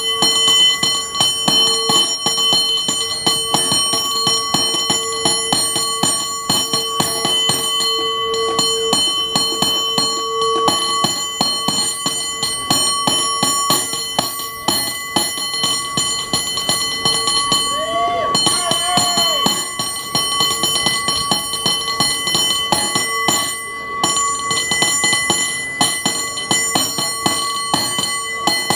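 San Francisco cable car bell rung by hand in a fast, continuous rhythmic run, struck many times a second so that its ring never dies away.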